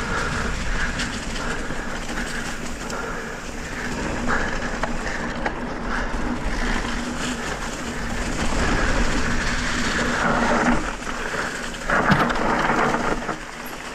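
Electric mountain bike riding down a trail over dry fallen leaves: continuous tyre crunch and rattle through the leaf litter and the bike chattering over rough ground, with a harder jolt about twelve seconds in.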